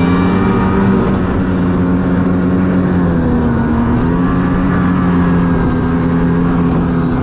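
Ski-Doo 550 snowmobile's two-stroke engine running at a steady cruising speed while riding, its pitch dipping slightly about three seconds in and then holding steady.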